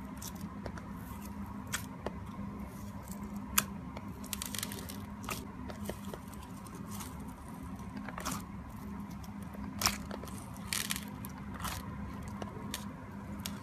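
Clear slime loaded with small beads being folded and squeezed by hand, the beads crackling and clicking against each other in the slime, with two sharper clicks, about three and a half and ten seconds in. A steady low hum runs underneath.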